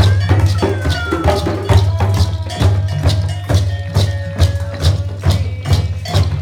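Upbeat music with a strong bass line and a steady beat of percussion strikes, about two a second, with a couple of falling sliding tones over the top.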